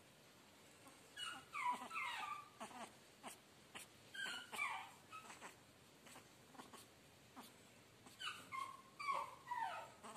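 Black pug puppy whimpering: short high-pitched whines that fall in pitch, coming in three bunches of several cries each.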